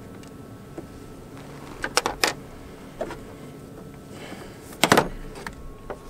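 A few sharp clicks and knocks from handling battery cables and hardware in a car's engine bay: a pair about two seconds in, one near three seconds, and a louder cluster near five seconds, over a faint steady hum.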